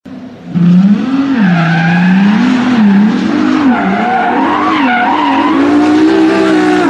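Sports car engine revving up and down while the tyres squeal in a burnout, starting about half a second in.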